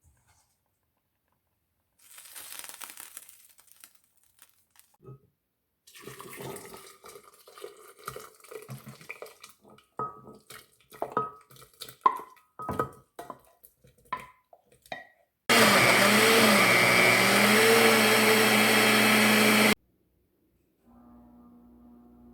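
Knocks and clatters, then a small electric motor runs loudly for about four seconds, its pitch wavering, and cuts off suddenly.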